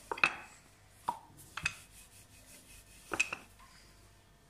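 Wooden rolling pin knocking on a countertop while rolling out a thin sheet of samosa dough: a few short, sharp knocks spaced irregularly, two of them close together about three seconds in.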